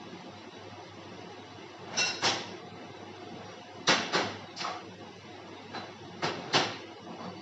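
Hard knocks and clunks of parts and tools being handled during mold work at a plastic injection machine: about eight sharp strikes in three short clusters, over a steady low hum.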